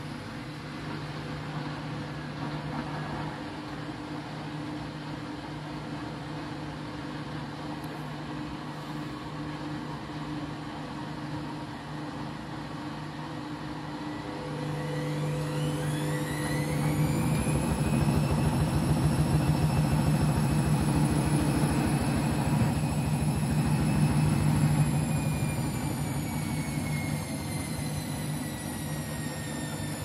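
Candy front-loading washing machine spinning its drum in the final spin after the bedding load has finally balanced. A steady hum runs for the first half, then about halfway the motor's whine rises in pitch as the drum speeds up, levels off louder, and slowly drops near the end.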